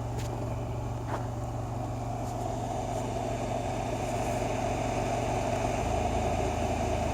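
Fan of a 7.5 L portable car fridge running with a steady hum, growing slightly louder in the second half. The fridge runs but blows only ambient air and does not cool.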